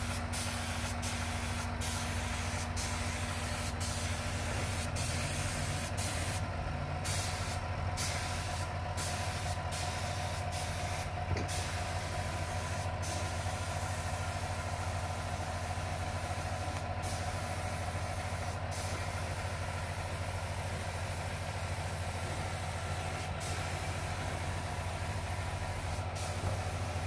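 Compressed air hissing steadily from an air hose nozzle worked over a finished wood carving, the hiss cutting out briefly now and then as the trigger is let go. A steady electric motor hum runs underneath.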